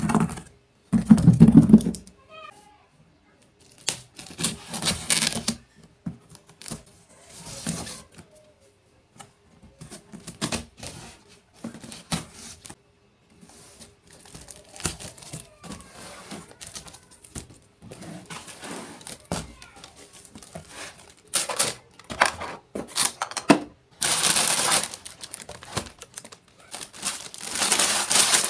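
Unboxing sounds from a toy kitchen set: plastic packaging crinkling and tearing, with small parts clicking and tapping in irregular bursts. The crinkling gets louder and denser near the end.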